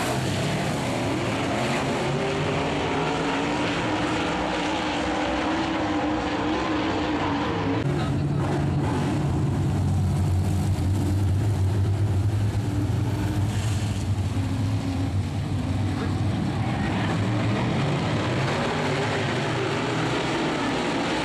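Engines of a field of dirt-track race cars running as the pack circles the track. A low engine drone swells louder from about a third of the way in to past the middle as cars pass close, then eases back.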